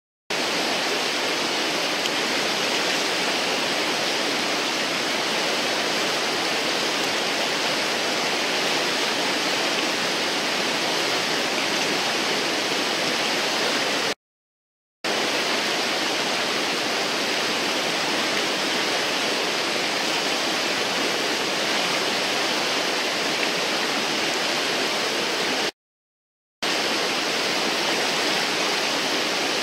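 Steady rush of whitewater from a river's standing wave and rapid. The sound drops out to silence twice for under a second, about halfway through and again a few seconds before the end.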